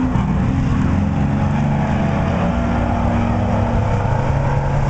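Engines of several dirt-track race trucks running together as they lap the oval, a steady drone of overlapping engine notes that shift slightly in pitch.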